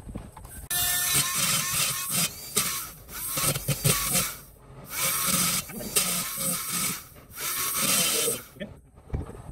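Right-angle die grinder with a carbide burr cutting the port walls of a Yamaha RX135 two-stroke cylinder. It grinds in spells of a second or two with short breaks, its pitch wavering, and stops shortly before the end.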